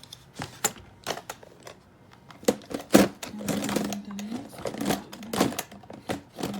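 Irregular clicks, knocks and clatter of items and parts being handled in an aluminum makeup train case, with the loudest knock about three seconds in. A short low drone follows it.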